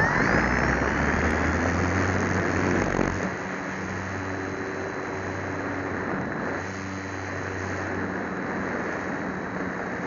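Model airplane's motor and propeller running hard with loud wind rush, heard from a camera on the plane. About three seconds in the sound eases to a quieter, steady drone.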